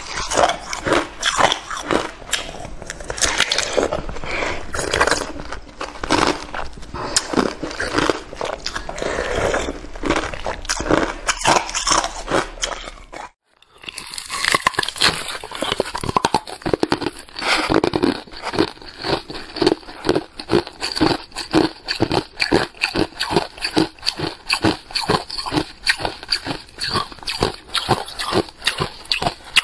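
Close-up crunching of frozen ice being bitten and chewed. After a short silent break about halfway, a quick, even run of crunches follows as ice cubes are bitten straight from a plastic ice-cube bag.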